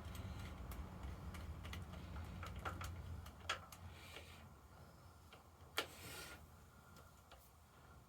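Faint, irregular light clicks and taps of hand tools working on a motorcycle battery and its mounting, over a low hum that fades out about halfway through.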